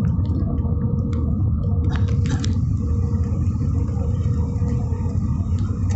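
Steady low rumble inside a jet airliner's cabin on approach to landing, engine and airflow noise with the flaps extended, under a faint steady hum.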